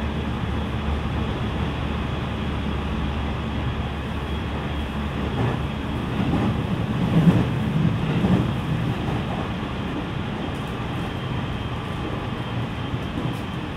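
On-board running noise of a JR West 207 series electric train: a steady rumble of wheels on rail, heard from inside the car. It grows louder for a couple of seconds about six to eight seconds in.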